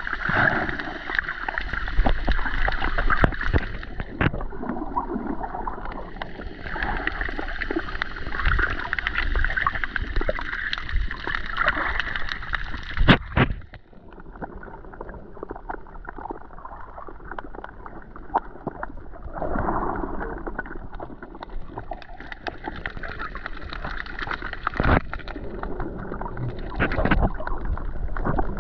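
Muffled water sloshing and gurgling around a camera held just under the sea surface, with scattered clicks and knocks. About halfway through, after a loud click, the sound abruptly turns quieter and duller.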